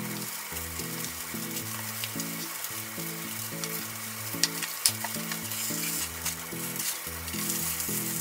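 Salted mackerel fillets sizzling on foil in a frying pan: a steady frying hiss, with two sharp clicks about halfway through.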